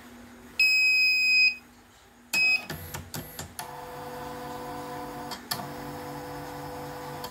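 CNY E900 embroidery machine powering up: a long electronic beep, then a short second beep, followed by several mechanical clacks as the mechanism initialises, and then a steady motor whine and hum.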